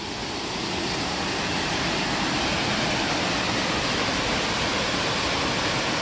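Steady rush of water pouring over a small waterfall on Minneopa Creek, swelling a little over the first second as the falls come closer.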